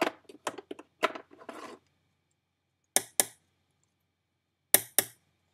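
Wooden fingerboard deck being popped on a hard surface: a run of light clacks, then two pairs of sharp clacks, one pair midway and one near the end, as the tail snaps down and the board lands.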